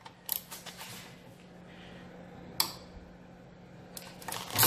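Quiet room with a steady low hum and a few light clicks: a handful soon after the start, one sharp tick a little past halfway, and a cluster of louder clicks near the end.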